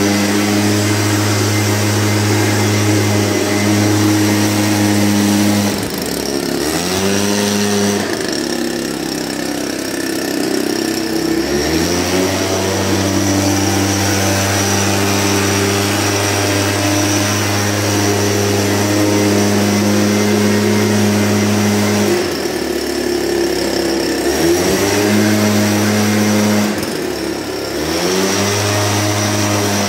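Two-stroke engine of a backpack motorized mist blower running at high speed while blowing disinfectant mist. Its engine speed drops and climbs back up again a few times.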